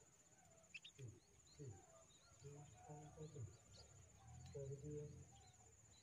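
Quiet outdoor grassland ambience: a steady high-pitched insect trill, scattered short thin bird chirps, and faint low voices in a few short stretches.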